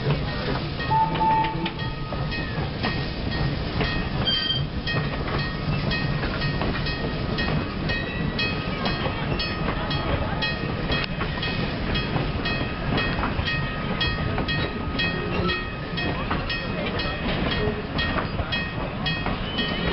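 Wooden passenger coaches of a steam train rolling past at slow speed: a steady rumble with frequent wheel clicks and clacks over the rail joints.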